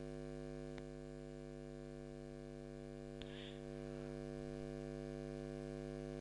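Steady electrical mains hum in the recording, made up of several constant tones, with two faint clicks about a second in and about three seconds in.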